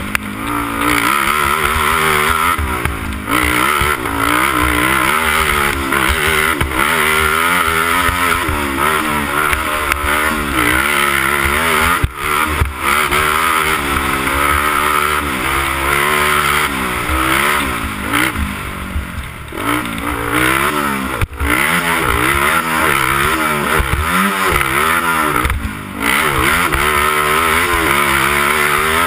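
Honda TRX300EX quad's single-cylinder four-stroke engine revving hard and constantly rising and falling in pitch as the rider works the throttle and gears around a motocross track, with brief drops when the throttle is closed. A couple of sharp knocks stand out, about 12 and 21 seconds in.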